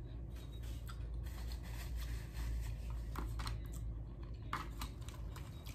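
Person chewing nachos with tortilla chips, a few scattered small crunches and clicks over a steady low hum.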